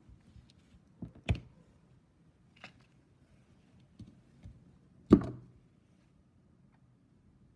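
Scattered clicks and knocks of metal tools and shock parts being handled during a shock rebuild. Two louder knocks stand out, about a second in and about five seconds in, the second with a short ring.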